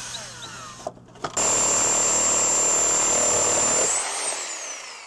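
Corded reciprocating saw (Sawzall) with a wood-with-nails blade: running lightly at first, then cutting hard for about two and a half seconds from just over a second in. Near the end the motor pitch rises briefly as the cut frees up, then falls as it winds down.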